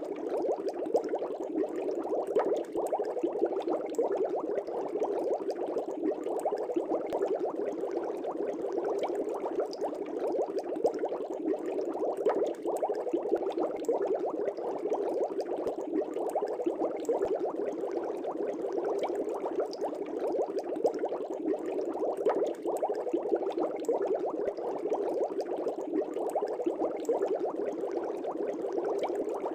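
Air bubbles rising in an aquarium: a continuous, dense bubbling with many small pops, steady throughout.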